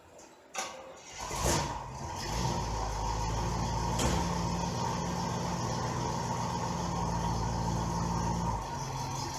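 1964 Chevrolet Impala's engine starting: a click, then it catches with a quick rev about a second and a half in and settles into a steady run. Its note drops slightly near the end.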